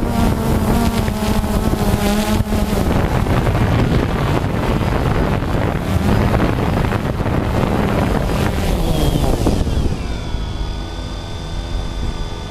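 DJI Phantom 2 quadcopter's motors and propellers whining under heavy wind buffeting on the drone-mounted GoPro's microphone. About ten seconds in, as the drone comes down to the snow, the wind noise falls away and the motor pitch drops, then settles into a steady whine of several tones.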